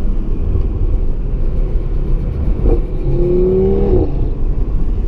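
2017 Audi TT RS's 2.5-litre turbocharged five-cylinder engine pulling while the car is driven, heard onboard. The engine note rises briefly between about three and four seconds in.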